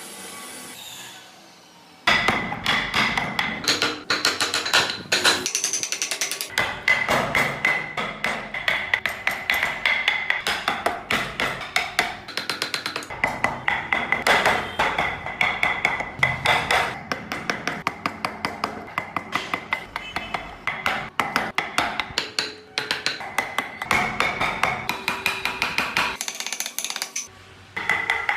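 Rapid, repeated hammer taps on a carving chisel cutting into wood. They start about two seconds in and come several times a second.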